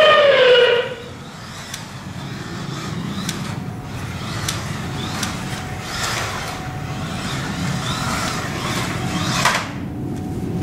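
Scalextric Aston Martin DBS slot car's 18,000 RPM electric motor whining as it laps the track. A loud whine falls in pitch over the first second as the car passes close. Then a lower steady running hum swells and fades as it comes round again, cutting off sharply near the end, with scattered light clicks.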